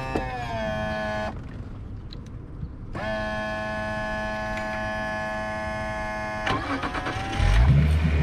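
Honda outboard motor running with a steady pitched hum that winds down and stops about a second in, then restarts about three seconds in and settles at once into a steady idle. Near the end a loud low rumble covers it.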